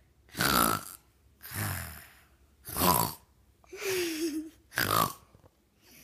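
A young boy fake-snoring in imitation of an adult: loud rasping breaths drawn in alternate with lower, softer breaths out, five in all, with a short hum on the second breath out.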